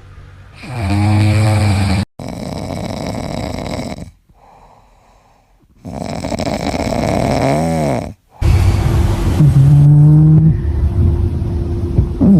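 Domestic cats snoring loudly in a series of short clips joined by abrupt cuts, each snore a rasping, pitched breath lasting one to three seconds, with one much fainter snore in the middle.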